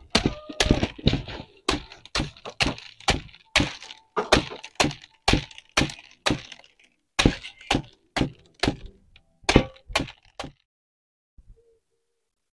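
A bundle of dried Sichuan pepper sprigs slapped again and again against a woven bamboo basket, about two strikes a second, threshing the opened fruit so the black seeds fall out. The strikes stop near the end.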